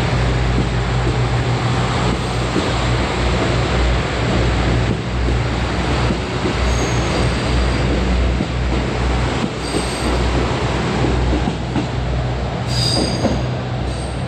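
KiHa 85 diesel railcars moving through the platform, their Cummins diesel engines running with a steady low drone under loud wheel and rail noise. A brief high squeal near the end.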